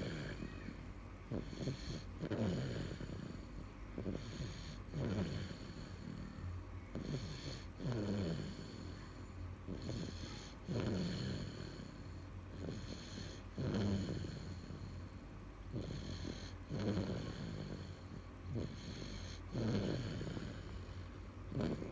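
Sleeping baby snoring in a steady rhythm, one snore roughly every three seconds.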